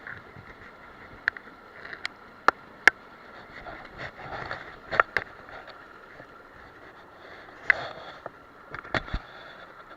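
Mountain stream water running steadily, with about seven sharp, irregularly spaced clicks or knocks over it.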